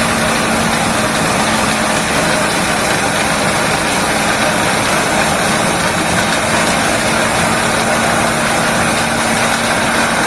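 Engine-driven corn-processing machine running steadily, a constant engine hum under a dense, even mechanical noise.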